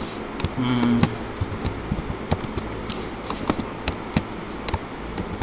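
Typing on a computer keyboard: irregular key clicks over a steady low background hum.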